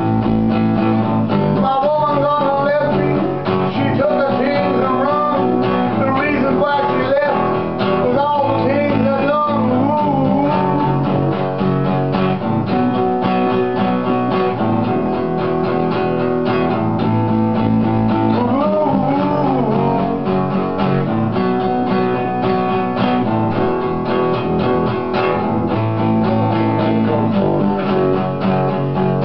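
Acoustic guitar strumming chords with an electric guitar playing over it, continuous and steady. Wavering, bending notes ride on top through the first ten seconds and again about two-thirds of the way in.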